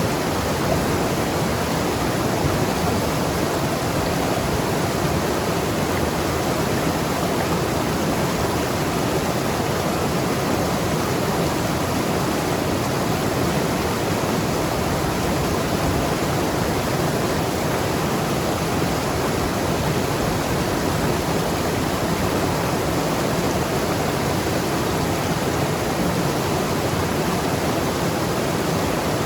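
Mountain river rushing and gurgling over rocks, a steady, unbroken wash of water noise.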